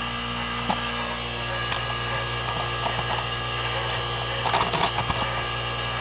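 Bryant heat pump outdoor unit running with a steady mechanical hum, its compressor on. A few light clicks and rattles come about four and a half seconds in.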